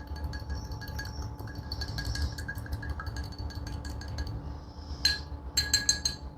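A spoon stirring drink mix in a cup: rapid small clinks against the sides, with a few louder ringing taps near the end.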